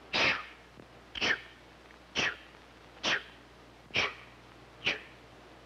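A voice imitating a steam train with a breathy "ch" sound: six even puffs, a little under a second apart.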